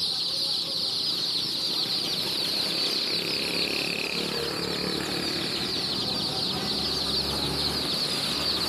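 A large flock of domestic chicks peeping all at once: a dense, steady chorus of high, short, falling cheeps.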